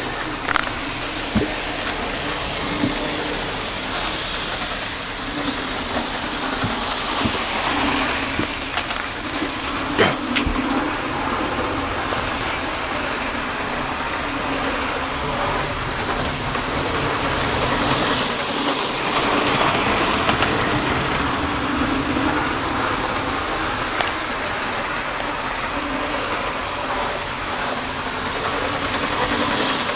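Model railway train running round the layout's track: the locomotive's small electric motor and wheels on the rails give a steady whirring rattle, with a single sharp click about ten seconds in.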